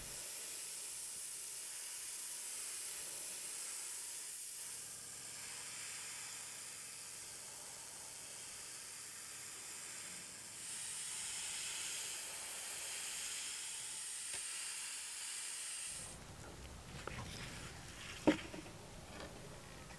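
Airbrush spraying paint: a steady high hiss of air that gets louder about halfway through and cuts off suddenly. Then light handling clicks and one sharp click near the end.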